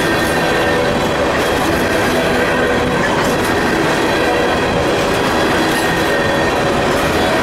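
Empty coal cars of a Union Pacific coal train rolling past close by: a loud, steady rumble and rattle of wheels on rail, with faint thin ringing tones over it.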